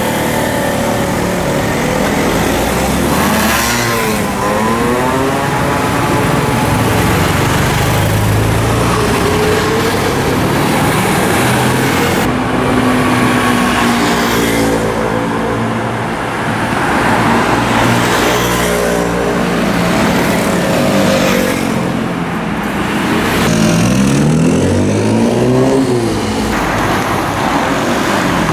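City traffic: motorcycles, scooters, cars and buses passing, their engine notes rising and falling as they accelerate by. A vehicle's engine note rises steeply late on.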